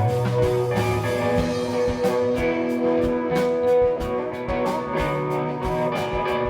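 Live blues-rock band playing an instrumental passage: electric guitar over bass and a steady drum beat.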